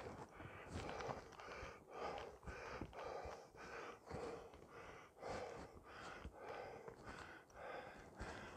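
A hiker breathing hard and rhythmically while walking, with quick regular breaths about two a second.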